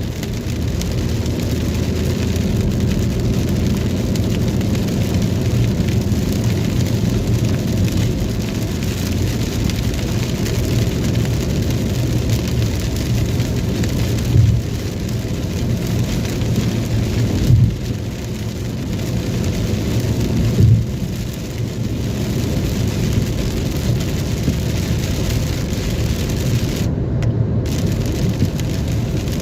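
Steady heavy rain with a low, steady vehicle hum under it, and three brief low bumps about halfway through.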